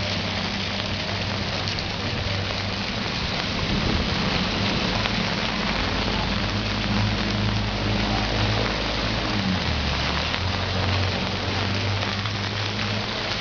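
Heavy rain pouring steadily onto a flooded street. Underneath it runs a low engine drone from motorcycles and an auto-rickshaw wading through the floodwater, changing pitch about nine seconds in.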